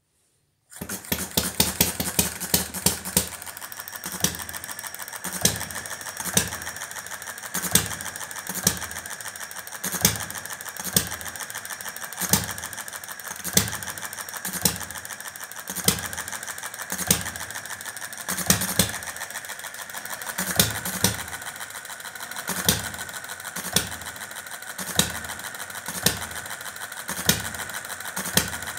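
Model Witte single-cylinder stationary engine running on test. It fires in quick succession for the first couple of seconds, then settles to one sharp firing stroke about every second, coasting on its flywheels between firings with a light mechanical clatter: the hit-and-miss pattern of a Witte-type engine.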